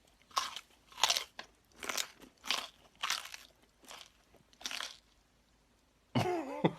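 A person biting and chewing crunchy food close to the microphone: a Foley imitation of an animal eating. It gives about two crunches a second, which stop about five seconds in; a short pitched sound follows near the end.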